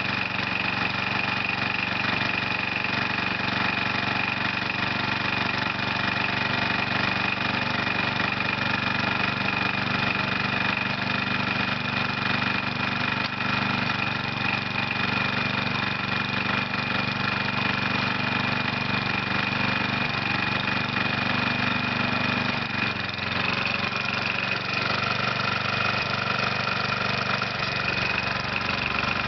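Briggs & Stratton 8 hp single-cylinder engine on an old Murray riding mower idling steadily after a choked start. The owner says it has rod knock and smokes, signs of a worn crankshaft, connecting rod and rings.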